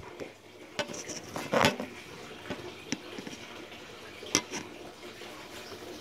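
Kawasaki Vulcan 900 rubber final-drive belt making four or five short, sharp chirps and clicks, the loudest about a second and a half in, over a steady low hum. The owner puts the noise down to the belt being too tight.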